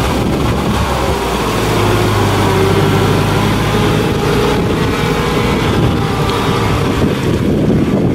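Off-road vehicle's engine running steadily while the 4x4 is towed out of a river ford on a tow strap, with water splashing around the wheels and wind buffeting the microphone. The steady engine hum gives way after about three seconds to a rougher rumble.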